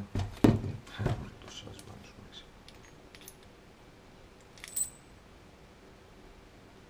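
Steel gearbox gears and shafts from a Honda Astrea engine clinking and knocking as they are handled: a few knocks in the first second, light clicks after, and one sharp ringing metal clink about five seconds in.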